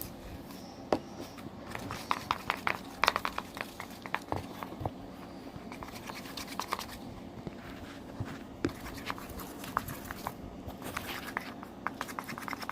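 Slime mixture of glue, water and baby powder being stirred by hand in a container: irregular clicks and scrapes, denser near the start and again near the end.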